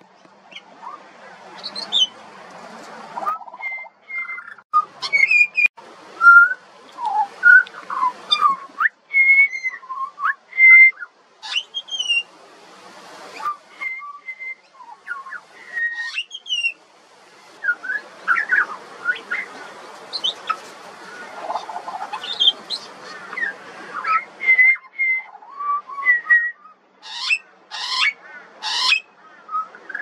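Juvenile pied butcherbird singing: a varied run of short, clear whistled notes and sliding glides, with quieter scratchy stretches in between and a few harsh notes near the end.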